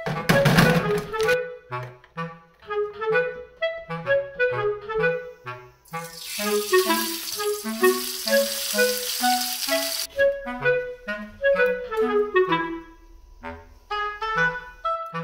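Background music: a woodwind melody of short, bouncy notes. A loud burst of noise comes in the first second or so, and a steady hiss runs under the music for about four seconds in the middle.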